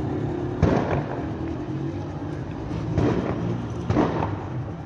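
Three sharp bangs in the street, echoing off the buildings, about half a second in, at three seconds and at four seconds; the first is the loudest.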